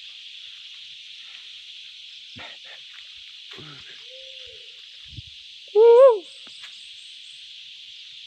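Steady high drone of insects in vegetation. About six seconds in, one short, loud, pitched animal-like call or yelp rises and then falls in pitch.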